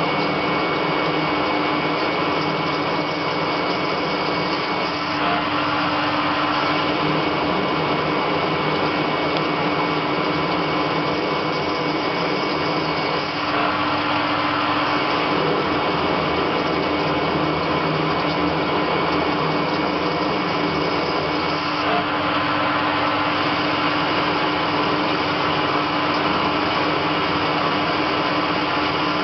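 CNC lathe turning a metal workpiece under a flood of coolant: steady machine hum with the continuous hiss of coolant and cutting noise.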